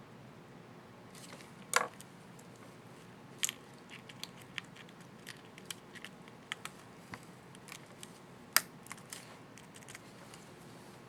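Small plastic clicks and ticks from a laptop keycap and its scissor-hinge retainer being handled and pressed into place on the keyboard, with two sharper snaps, one about two seconds in and one later on.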